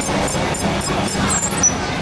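Busy amusement-ride unload-station din with faint background music. A short high beep starts near the end and repeats about every half second.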